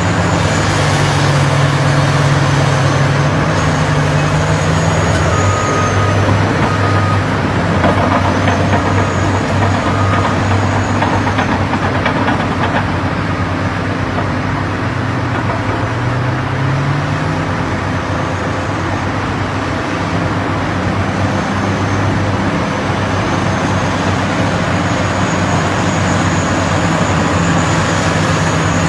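Heavy diesel engine of earthmoving machinery running under load, its pitch rising and falling as it revs up and down over a constant mechanical din.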